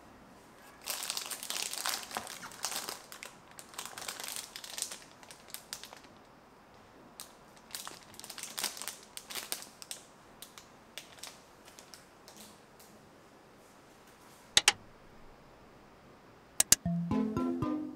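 Crinkling of a Brita Maxtra+ filter cartridge's plastic packet being handled, in irregular bursts that thin out after about ten seconds. Near the end there is a single sharp click, then two quick clicks, and plucked-string music begins in the last second.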